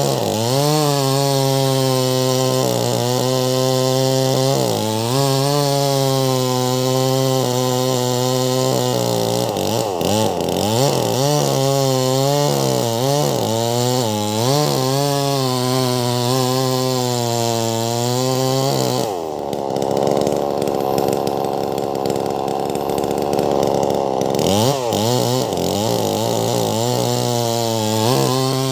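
Wagner 580 two-stroke chainsaw with a 24-inch bar cutting lengthwise through a large log. The engine speed sags and recovers again and again as the chain loads up in the wood. About two-thirds of the way in it bogs down low for around five seconds, then picks back up to full speed.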